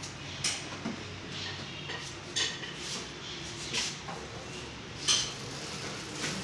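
Metal tools clinking and knocking against each other and the motorcycle while it is being worked on: about seven short, sharp clinks spaced unevenly, the loudest about five seconds in.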